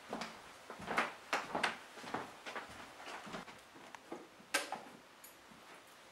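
Scattered knocks, thuds and rustles of someone moving about and handling a box, with a sharp click about four and a half seconds in.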